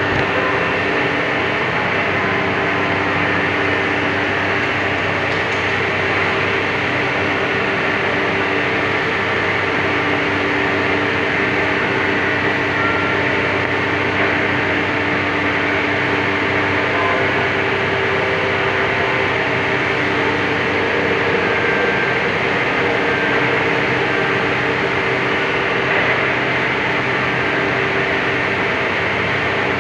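Workshop machine running steadily with an even hum and hiss, unchanging throughout.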